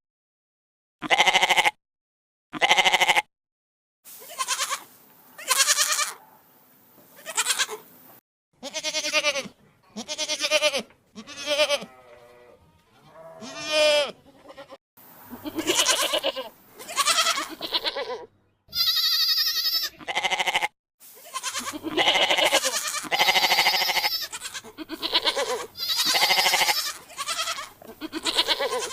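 Goat and ibex bleats, one after another: three short bleats at first, then a run of longer calls that bend in pitch, with one higher, squealing call about two-thirds of the way through.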